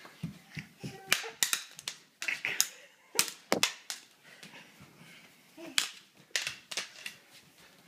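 Irregular sharp clacks and knocks of a toy sword fight, a dozen or so hits in quick clusters with gaps between them.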